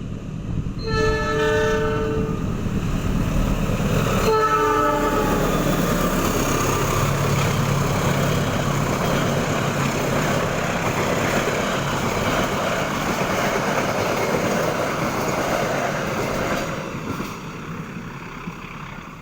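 Diesel locomotive of the Lodaya passenger train sounding two horn blasts, the first longer, then the train rumbling past with wheel and rail noise that fades away near the end.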